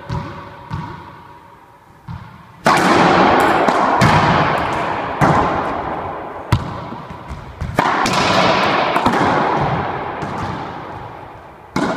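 Racquetball rally: a few light bounces of the ball on the floor, then sharp cracks of the hollow rubber ball off racquet strings and walls about every second and a quarter, each one ringing out in the enclosed court.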